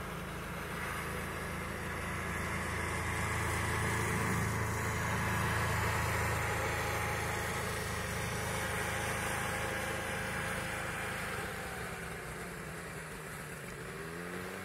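Buran snowmobile's two-stroke engine running as it passes, growing louder to a peak mid-way, then fading, and rising in pitch near the end.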